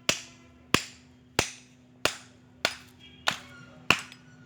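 Hammer striking a scrap fridge compressor's rotor, seven steady, evenly spaced blows with a short metallic ring after each, knocking the rotor loose.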